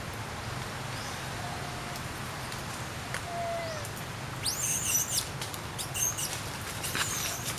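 Short, high-pitched animal squeaks, the loudest about halfway through and a couple more near the end, over a steady outdoor hiss.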